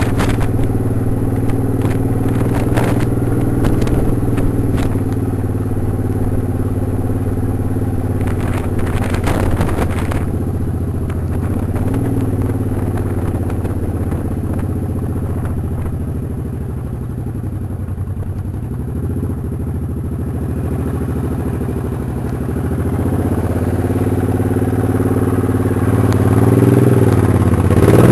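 Motorcycle engine running under way at a steady road speed, with sharp clattering knocks over the first ten seconds or so. About two-thirds of the way through the engine note sags as the bike slows, then it rises and gets louder again as the bike speeds up near the end.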